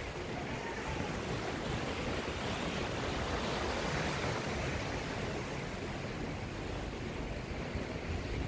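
Sea surf washing on a beach, a steady rush of noise that swells a little about halfway through, with low wind rumble on the microphone.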